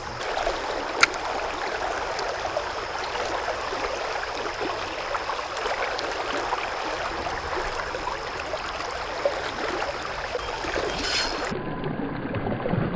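Creek water running over riffles: a steady rushing of the stream, with a sharp click about a second in.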